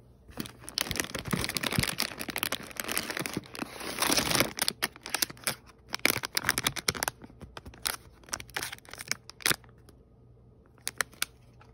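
Foil and plastic blind-bag packets and card-backed packs crinkling and rustling as hands rummage through a bin of them. Dense crinkling for the first few seconds, then sparser crackles, with a few sharp clicks near the end.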